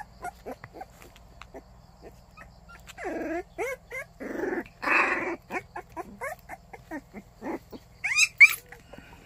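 Young white baekgu puppies whimpering in short, high cries while one is turned over in a hand, with a run of shrill squeals near the end.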